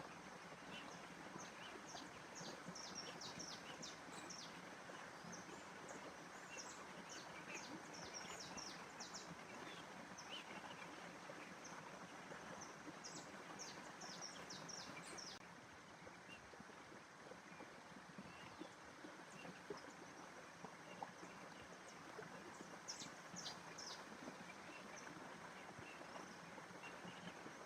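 Faint outdoor nature ambience: small birds chirping in quick runs of short high notes, in several clusters with a lull after the middle, over steady background noise.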